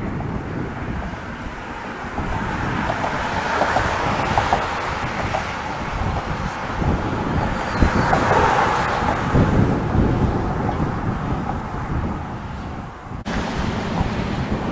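Wind buffeting the microphone over the rumble of road traffic passing close by. A pickup truck goes by about halfway through, where the sound is loudest.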